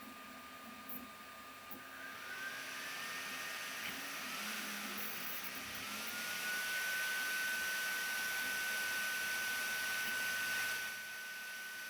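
Sovol SV08 3D printer running, with a steady high whine from its stepper motors that glides up in pitch a few seconds in and then holds, over a fan hiss that swells and then drops off near the end.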